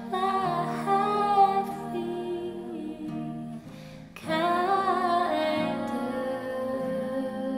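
A woman singing to her own acoustic guitar: two sung phrases over held guitar chords, with a short break in the voice about halfway through.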